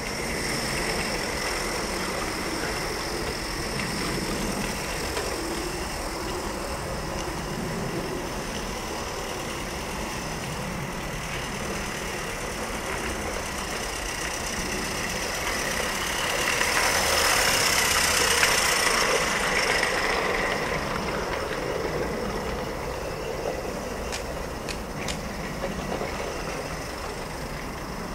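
Mamod Double Fairlie live-steam model locomotive running in steam, a steady hiss over a low rumble that swells to its loudest about two-thirds of the way through, then fades as the engine goes by.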